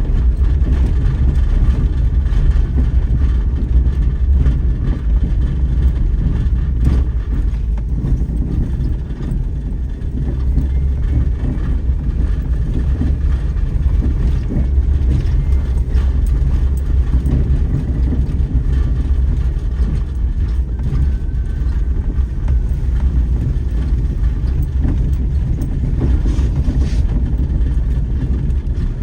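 Daihatsu Terios Kid running along a forest road: a steady low engine and road rumble with a few light knocks scattered through it.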